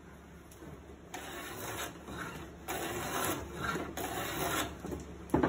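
Shop-made wooden foreplane shaving a board edge: several rasping push strokes, each about a second long, starting about a second in, then a sharp knock near the end.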